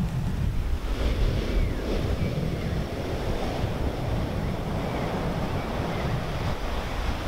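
Steady rushing of surf and wind, played from a television's speakers as the soundtrack of a video installation, with a few faint high chirps.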